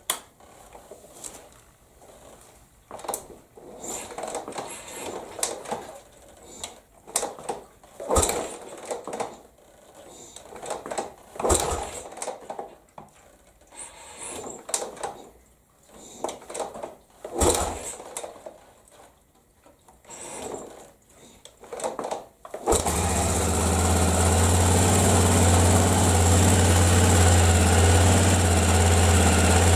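Honda XL600R single-cylinder engine being kick-started over and over without firing. It catches about 23 seconds in and idles steadily, running on its newly fitted Ignitech DC CDI ignition.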